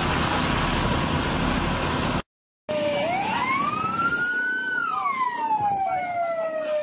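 A loud, even rushing noise cuts off about two seconds in. After a brief silence an emergency vehicle siren wails, rising slowly, falling back over a few seconds, and starting to rise again near the end.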